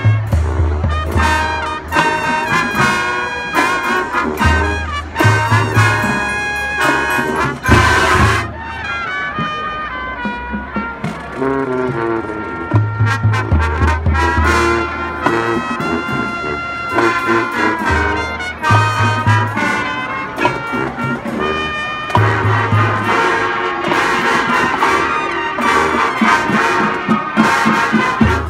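School marching band playing a jazz arrangement: the brass section carries the melody over repeated low bass notes. A cymbal crash comes about eight seconds in.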